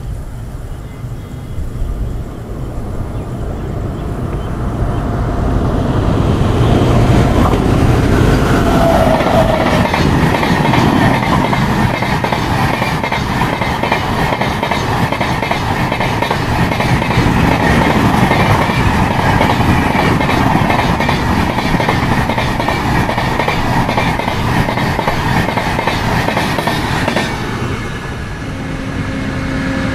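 Express train of LHB passenger coaches behind a WAP-7 electric locomotive passing at speed: a steady rush with rapid clatter of wheels over the rails. It builds over the first several seconds and drops away near the end as the last coach goes by.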